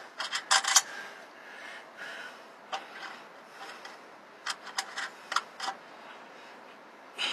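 Small metal clicks and light scraping of washers and nuts being fitted by hand onto the threaded studs of a truck battery hold-down lock, a few scattered ticks at a time.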